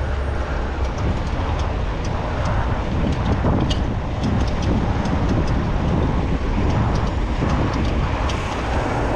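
Wind rumbling on the microphone as a mountain bike rolls along a paved street, with tyre noise and scattered light clicks and rattles through the middle.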